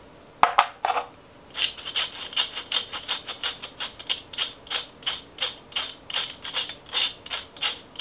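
Metal spoon rubbing ground ginger through a fine wire-mesh strainer: a steady run of quick, even scraping strokes, about three a second, after two light taps near the start.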